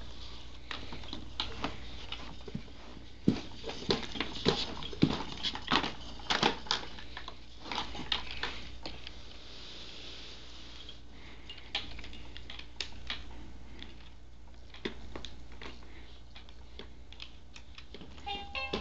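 Plastic toys on a baby's ExerSaucer activity center clicking, clacking and rattling irregularly as the baby handles them, densest in the first half and sparser later.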